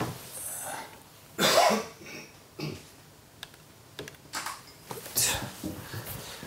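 A person coughs once, sharply, about a second and a half in, with a second, shorter cough about five seconds in. A few light laptop key clicks fall in between.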